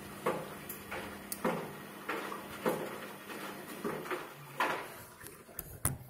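Front-loading washing machine drum tumbling with water inside: water sloshes and splashes against the drum in a regular rhythm, one swish a little more than every half second, over a low hum that fades out about halfway. A sharp click comes just before the end.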